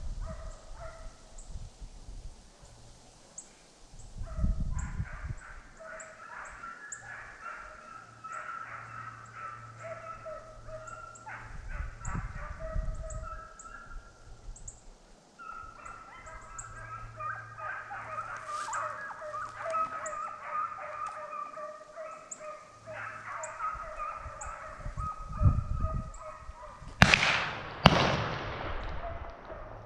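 A pack of deer hounds bawling and baying in the woods as they run a deer. Near the end come two gunshots about a second apart, each ringing out.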